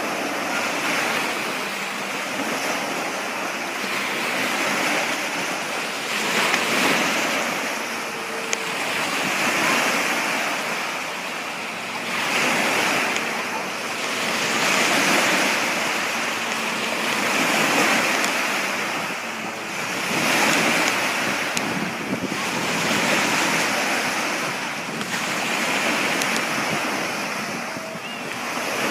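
Water washing and splashing, swelling and easing every two to three seconds, with wind buffeting the microphone.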